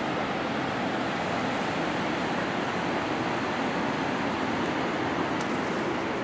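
Pacific Ocean surf breaking on the beach below: a steady, even rushing noise with no single wave standing out. A few faint rustles come in near the end.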